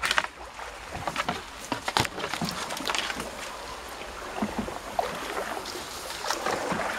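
Canoe paddle splashing in the river while leaves and twigs rustle and snap as the canoe pushes through overhanging branches, with scattered sharp knocks throughout.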